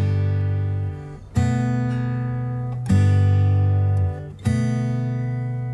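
Background music: acoustic guitar strumming sustained chords, a new chord about every second and a half.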